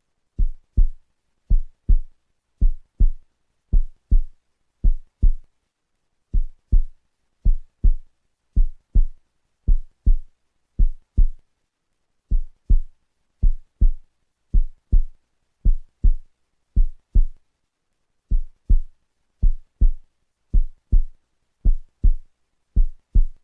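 Heartbeat sound effect: pairs of low thumps, lub-dub, repeating about once a second with dead silence between, with one short pause about two-thirds of the way through.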